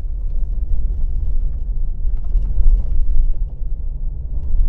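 Low, steady rumble inside the cabin of a 2024 Subaru Crosstrek Wilderness climbing a rough, rocky gravel road. It is the tyres working over stones together with the engine pulling the climb.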